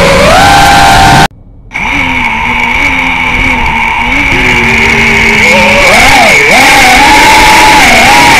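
Racing quadcopter's electric motors whining, the pitch rising and falling with the throttle. The sound cuts out briefly just over a second in, then returns as a steady high whine, with a lower tone that climbs in pitch near the end.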